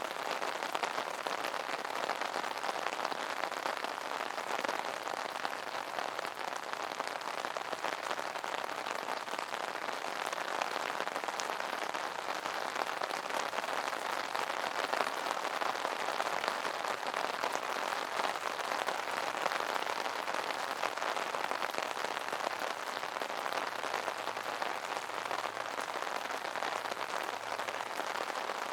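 Raindrops pattering steadily on an umbrella's fabric canopy, a dense even shower of small taps.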